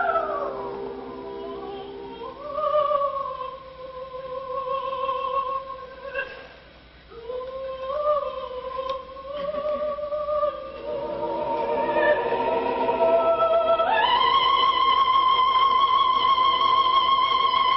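Coloratura soprano singing an operatic line live, with vibrato: a falling phrase, then sustained notes in her middle range. About fourteen seconds in she leaps up to a long high note, held with vibrato.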